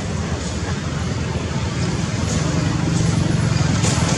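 Steady background rumble of road traffic, with a low engine hum that grows a little stronger about halfway through.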